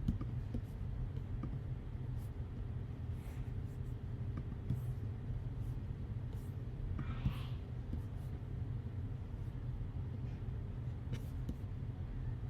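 Steady low background hum of the recording, with a few faint clicks and a short breathy hiss about seven seconds in.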